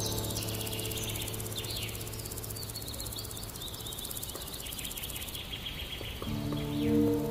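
Runs of quick, high chirping over a steady hiss. About six seconds in, the held tones of ambient music come back in.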